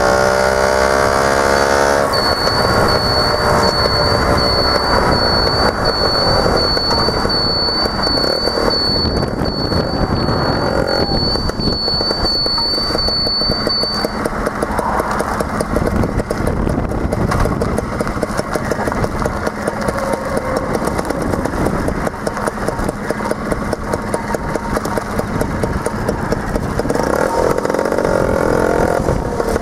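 LML scooter engine running while riding, its pitch falling over the first couple of seconds as it slows, and shifting again near the end as it slows on gravel. A steady high-pitched tone sounds from about two seconds in until about halfway.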